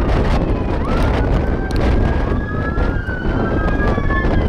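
Emergency vehicle sirens wailing, several rising and falling tones overlapping one another, over loud wind buffeting the microphone.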